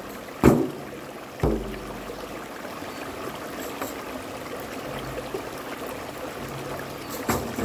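Stream water rushing steadily over rocks. A frame drum is struck twice near the start, the second hit ringing on with a low boom, and once more near the end.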